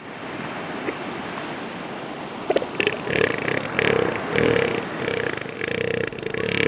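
An animal giving a run of short calls, about two a second, starting about two and a half seconds in, over a steady background hiss.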